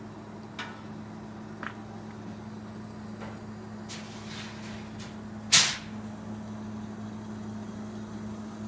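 Firewood burning in the firebox of a steel wood-burning cookstove, giving a few scattered crackles and one loud sharp snap about five and a half seconds in, over a steady low hum.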